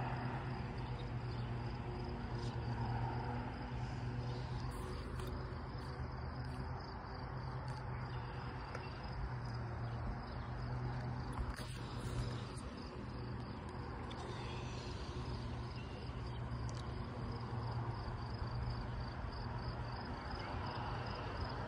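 Crickets chirping in a steady, evenly pulsing high-pitched chorus, over a low steady hum.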